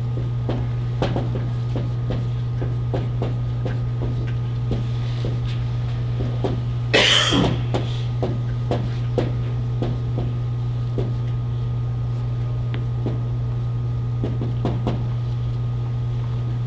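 Dry-erase marker tapping and stroking on a whiteboard, a string of short clicks over a steady low hum. One cough about seven seconds in is the loudest sound.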